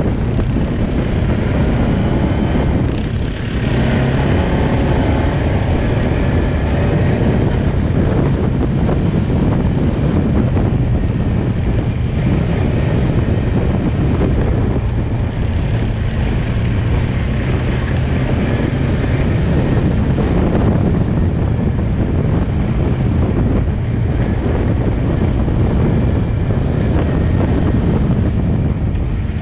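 Quad bike (ATV) engine running steadily while riding, with wind buffeting the microphone; the engine note dips briefly about three seconds in.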